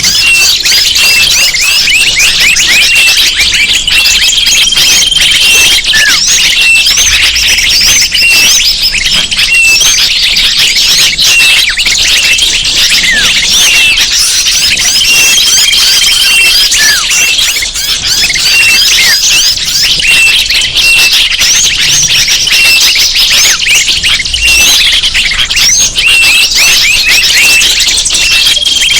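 Loud, dense chorus of many small birds chirping and whistling over one another, a bird-lure (pikat) call recording. A short held whistle recurs about every twelve seconds within the continuous chatter.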